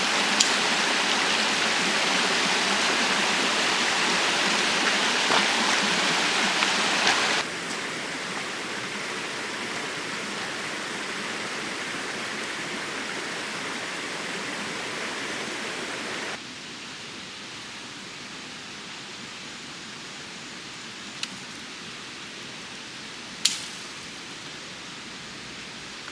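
Steady rush of flowing mountain-stream water, dropping sharply in level twice, about a third and about two-thirds of the way through. A few sharp clicks are heard, the loudest near the end.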